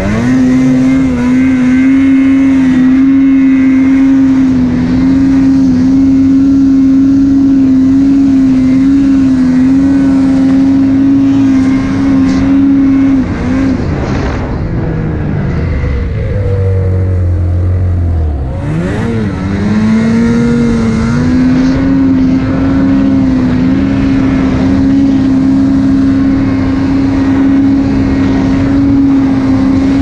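2020 Lynx Boondocker snowmobile's two-stroke engine held at steady high revs while sidehilling through deep powder. Nearly halfway through, the revs drop to a low idle for several seconds. They then climb back up and hold high again until they ease off at the very end.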